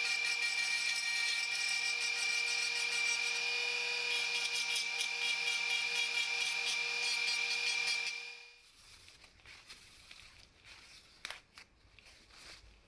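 Small handheld rotary tool with a grinding-stone bit running at a steady high whine while it grinds against the plastic housing of a cordless drill, with a fast scratchy rasp from the bit. The tool cuts off about 8 seconds in, followed by faint rustling and a couple of light clicks.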